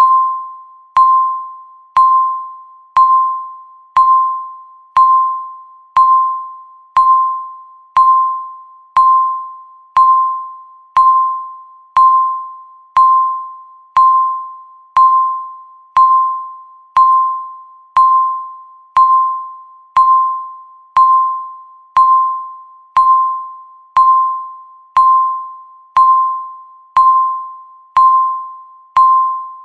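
Countdown timer beeping once every second: a single mid-pitched electronic tone that starts sharply and fades away, repeating evenly as each second ticks off.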